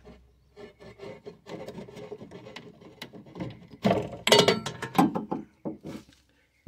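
Hand working the deflection yoke's 8-pin plug and wiring harness loose: wires and plastic rubbing, with a run of clicks and scrapes that is loudest about four to five seconds in.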